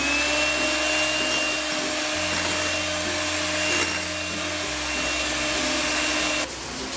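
Electric hand mixer running steadily at very low speed, its beaters folding sifted flour into whipped eggs for a sponge cake batter: a steady motor whine with hiss. It stops near the end.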